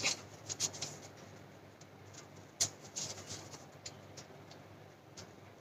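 Scissors making short, irregular snips through thin paper as the corners of a folded paper envelope are rounded off, with light rustling of the paper between cuts; the sharpest snip comes about halfway through.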